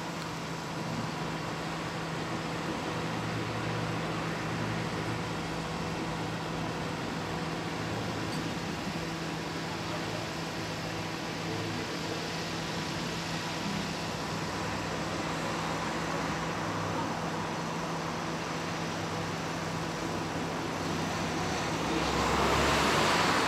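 Steady road traffic noise with a constant low hum underneath; a vehicle passes close near the end, briefly louder.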